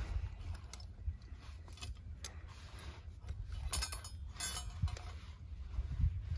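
Steel muskrat trap and its chain clinking and rattling as they are handled while the trap is set on a rod, with scattered clicks and two quick bursts of rapid rattling about two-thirds of the way in.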